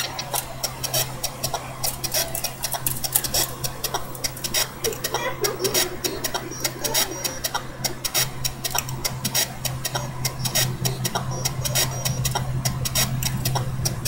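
Dense, irregular crackling and clicking, several a second, over a steady low hum.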